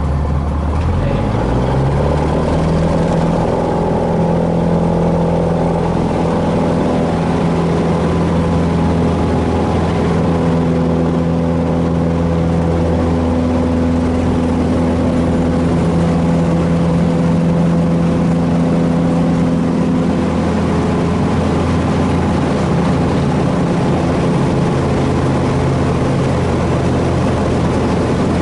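Cessna 150H's Continental O-200 four-cylinder engine and propeller opened up to full takeoff power, rising in pitch over the first couple of seconds, then running steadily at full power through the takeoff roll and climb-out, heard from inside the cabin.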